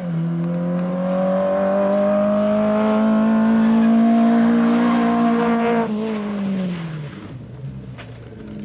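Rally car engine pulling under load, its note rising steadily for about six seconds, then falling away and running lower, with a fresh rise right at the end.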